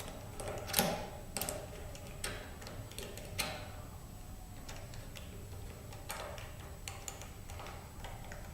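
Irregular light clicks and taps of small metal parts being handled as a truss head screw is picked up and set into the scraper's blade and jig, about a dozen in all, the sharpest about a second in and again a few seconds later.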